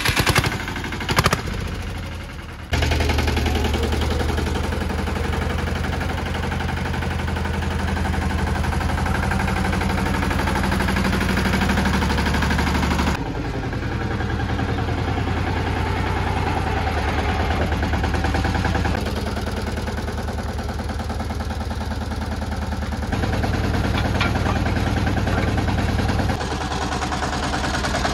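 Small diesel engine of an Escort Steeltrac 15 mini tractor running steadily just after being started, with a few sharp knocks in the first couple of seconds.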